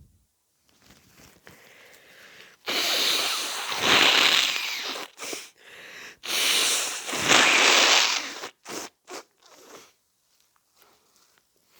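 Nose blown hard into a tissue twice, each blow a long noisy rush of about two and a half seconds that gets louder towards its end, followed by a few short snuffles. The blowing clears a nose congested by a head cold.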